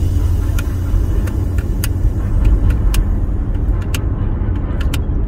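Car driving: a steady low rumble of road and engine noise, with scattered light clicks.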